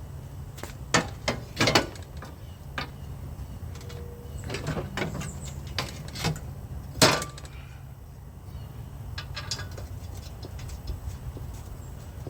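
Irregular metallic clicks and knocks of hand tools, as the nuts holding a mower deck's belt guard are tightened, over a steady low hum. Three loud knocks stand out, about a second in, near two seconds and about seven seconds in. A short run of quick ticks comes about nine seconds in.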